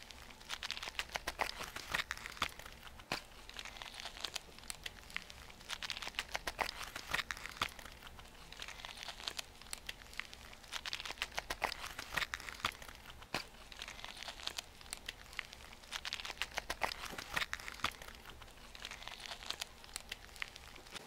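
Dry-erase marker scratching across a whiteboard in quick short strokes, coming in clusters every second or two.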